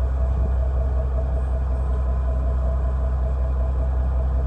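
Fishing boat's engine running steadily: a constant low drone with a faint steady hum above it.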